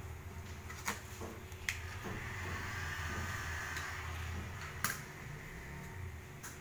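Vinyl sticker film being pressed and folded by hand around the edge of a sign letter: three sharp clicks of the plastic and a rustling hiss in the middle, over a steady low rumble.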